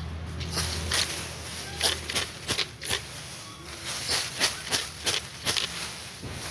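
Dry rice stalks being worked by hand in harvesting: a run of crisp, irregular rustling strikes and crackles, about two or three a second.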